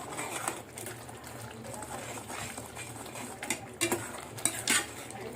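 Onion-tomato masala with ground spices bubbling and sizzling in a pan, with a spoon scraping through it a few times in the second half as the spices are stirred in and cooked.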